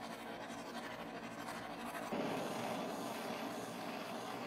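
Handheld butane canister blowtorch burning with a steady hiss as its flame heats a steel axe piece. The sound gets louder and fuller about two seconds in.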